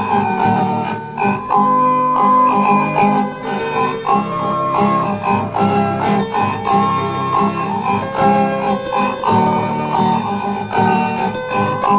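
Instrumental music led by plucked string instruments such as guitar, with notes changing in a steady flow.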